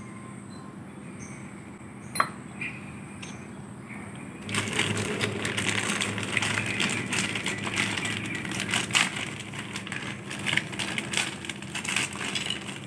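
Clear plastic bag crinkling and rustling in the hands, starting about four and a half seconds in and going on nearly to the end. A single sharp click comes shortly before it.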